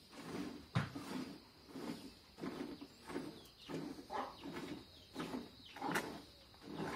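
A cow being milked by hand: short squirts of milk into a pail in a steady rhythm, about two a second, with a sharp click about a second in and another near the end.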